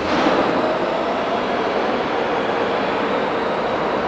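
New York City subway train running on a nearby track, a steady rumble of wheels on rail echoing through the underground station, with a sharp clack at the start.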